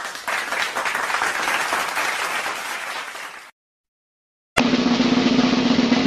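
Applause, many hands clapping, which fades slightly and cuts off about three and a half seconds in. After a second of silence, a drum sound effect starts with a sharp hit near the end.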